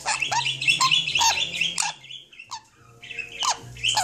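Pet parrot chattering: a quick run of short chirps and sharply falling notes for about two seconds, then a short lull and a few more chirps near the end.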